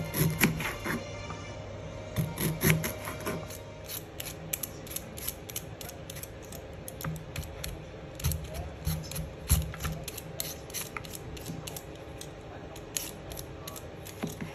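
A chef's knife slicing ginger root, its blade knocking on a plastic cutting board for the first few seconds, then a Y-shaped vegetable peeler scraping strips of skin off a chayote in quick repeated strokes, about two or three a second.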